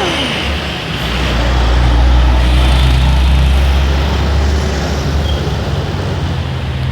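Bus engine rumbling as the bus drives past close by, loudest about two seconds in, just after the last falling note of its telolet horn dies away.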